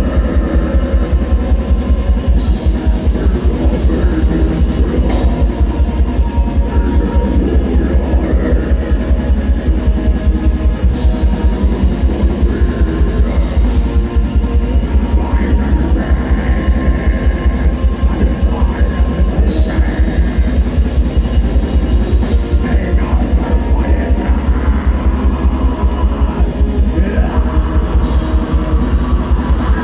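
Live metal band playing: distorted electric guitars and bass over a drum kit with a fast, unbroken run of kick-drum strokes.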